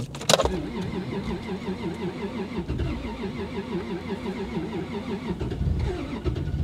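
Toyota Supra MK4's tuned turbocharged inline-six running at low revs with a rhythmic, uneven wobble, after two sharp clicks at the start.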